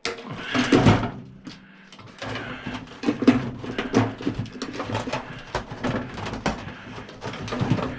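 Wire cutters snipping wires and metal parts of a microwave being handled during a teardown: a run of irregular small clicks, snaps and clatter, quieter for a moment about a second and a half in.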